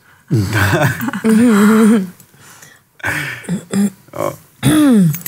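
People's voices making wordless sounds in several short bursts: a wavering held note about a second in, and a note that swoops up and then down near the end.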